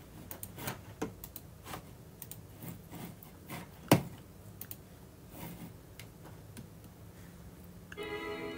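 Scattered keyboard and mouse clicks, irregular, with one louder click about four seconds in. Music with a violin starts just before the end.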